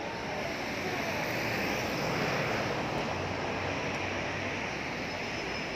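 Steady city traffic noise, swelling about two seconds in as a vehicle passes, then settling again.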